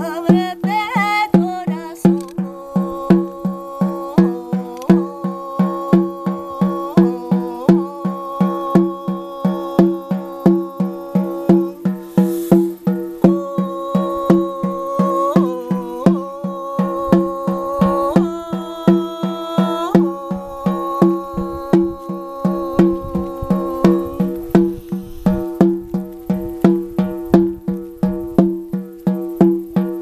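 A shamanic frame drum is struck with a beater in a steady beat of about two strokes a second, each stroke ringing with a deep tone. A woman's voice sings long held notes over it, then drops out about six seconds before the end, leaving the drum alone.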